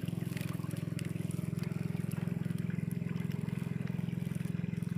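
Small engine running steadily at a constant speed, with a rapid, even pulse.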